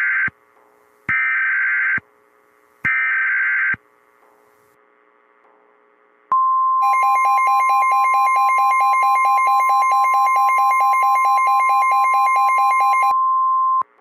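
Emergency Alert System alert from a NOAA Weather Radio broadcast: three short, screechy SAME data bursts about a second apart, then after a pause the steady, loud 1050 Hz weather-radio warning tone, with a buzzy, rapidly pulsing second tone under it for most of its length. The tones open the broadcast of a tornado watch.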